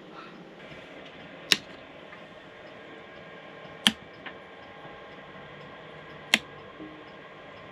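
Three sharp clicks about two and a half seconds apart, the middle one followed by a fainter tick, over a steady low hum.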